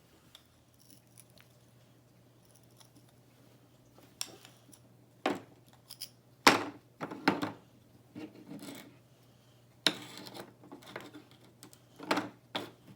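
Wooden toy microwave and wooden play food being handled: after a few quiet seconds, scattered clicks, knocks and clatters of small wooden pieces, the loudest about six and a half seconds in.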